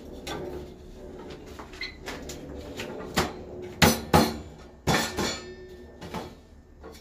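Perforated metal edge trim on a plasterboard panel clicking and rattling as it is pressed and snapped onto the board's edges. There are several sharp clicks in the middle, the loudest about four seconds in.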